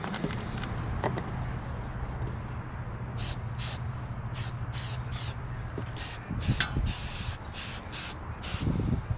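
Aerosol spray-paint can sprayed in a series of short hissing bursts, about ten quick sprays starting about three seconds in, one a little longer than the rest. A low steady hum runs underneath, with a couple of dull thumps from handling.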